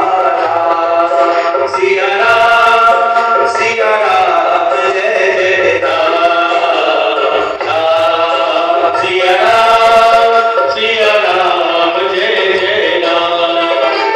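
Devotional singing with music, sung in long held phrases that rise and fall without a break.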